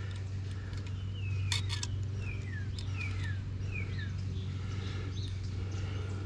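A bird singing a run of about five short falling notes in the background, over a steady low hum, with a couple of sharp clicks about a second and a half in.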